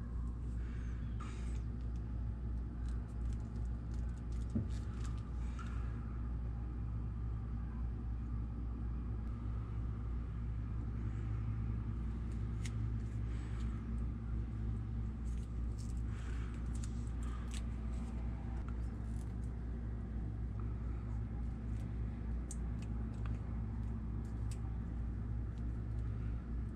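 Steady low background rumble, with faint scattered clicks and rustles from fingers handling a small crimped wire connector.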